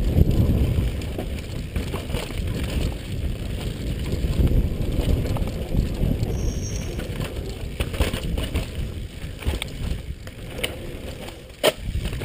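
Downhill mountain bike descending a dirt forest trail at speed: a steady low rush of wind on the helmet-mounted microphone and tyres over dirt, with rattles and clicks from the bike. Near the end comes a single sharp knock.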